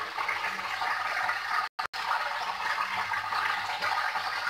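Raw banana slices deep-frying in hot oil, sizzling steadily after salted water has been added to the oil. The sound cuts out twice briefly just before the two-second mark.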